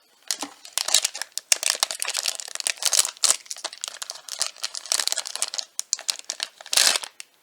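Blind box packaging being torn open and crinkled by hand, a dense run of irregular crackles and rustles with a louder rustle near the end.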